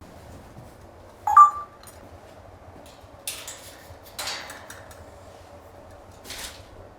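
Pet parrots calling: one loud, short whistle about a second in, then three shorter harsh, rasping calls a second or two apart.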